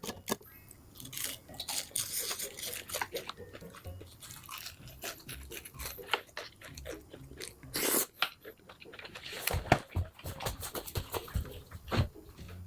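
A person chewing and biting a burger: a steady, irregular run of small mouth clicks and crunches, with a few louder crunches about 8, 10 and 12 seconds in.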